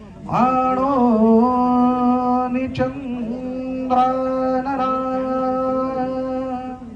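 A man's voice chanting in long held notes through a microphone and loudspeakers: the first note slides up and is held for a couple of seconds, a short break comes near the middle, and a second long note is held to the end.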